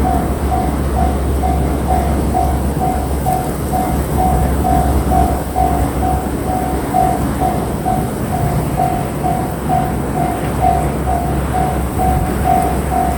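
Japanese level-crossing warning bell ringing in a steady repeated ding, about two to three strikes a second, over the loud rumble of a JR Shikoku 8600 series electric limited express train running through the crossing.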